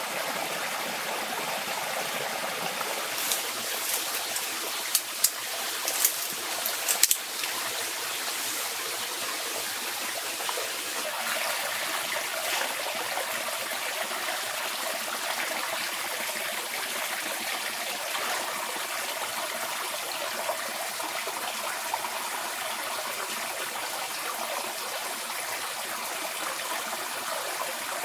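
Shallow rocky stream running steadily over stones and a small cascade. A few short, sharp clicks stand out between about three and seven seconds in.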